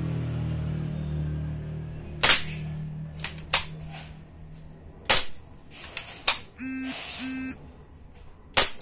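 M788 d'Cobra toy shotgun firing glass marbles: three sharp shots about three seconds apart, with smaller clicks between them. Two short beeps sound near the end.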